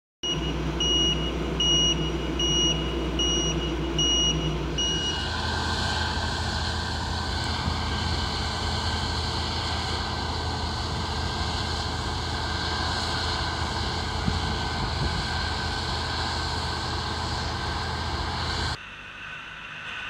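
Harvest machine engine running, with a reversing alarm beeping about twice a second for the first five seconds. The machine then runs steady and louder until the sound cuts to a quieter scene near the end.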